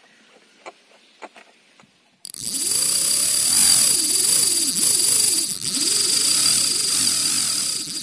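A few faint clicks, then from about two seconds in a loud, harsh outro logo sound effect with a hissing top and low tones that swoop up and down over and over, cutting off abruptly at the end.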